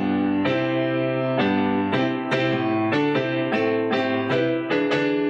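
Instrumental music passage on a keyboard with a piano-like sound: a run of separate struck notes, about two a second, over held chords, with no singing.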